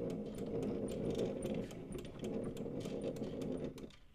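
Sonora phonograph spring motor being wound with its hand crank: quick metallic ratchet clicks over a gear whir, stopping shortly before the end.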